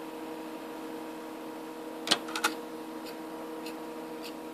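Clicks from a desktop computer's DVD drive being handled: two sharp clicks about two seconds in, then a few faint ticks, over the steady hum of the running computer.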